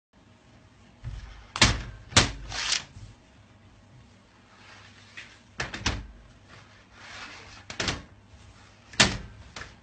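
Irregular sharp slaps and thumps, some in quick pairs, as long ropes of warm red candy are pulled and laid down on a steel worktable.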